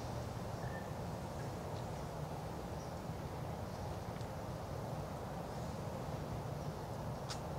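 Steady low outdoor background rumble, with a few faint, short high chirps and a sharp click near the end.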